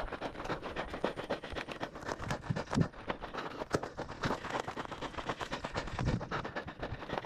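Running footsteps crunching on a gravel road, with knocks and rustle from a body-worn camera bouncing with each stride: an irregular patter of ticks and dull thuds.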